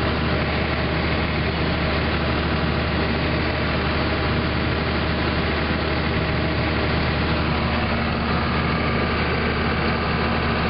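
Combine harvester's diesel engine and machinery running steadily, heard from inside the cab while harvesting soybeans, with a higher whine joining in about eight seconds in.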